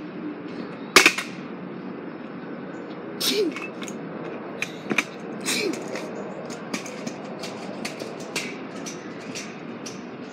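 Scattered sharp clacks and ticks at irregular intervals over steady street background noise, the loudest about a second in: a scooter being ridden on the street pavement.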